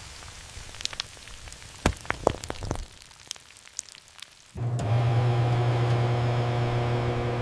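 A few light clicks, then a little past halfway a microwave oven switches on and runs with a steady low electrical hum.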